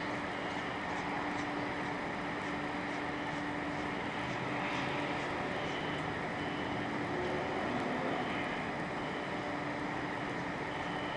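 Steady outdoor city background noise with a constant low hum. From about six seconds in, faint short high notes repeat about twice a second.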